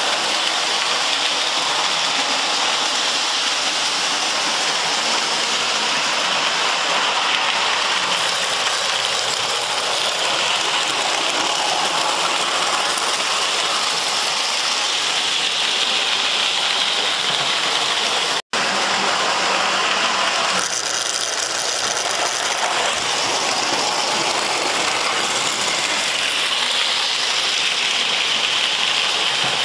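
Model train running on the layout's track, a steady mechanical noise that cuts out briefly about two-thirds of the way through.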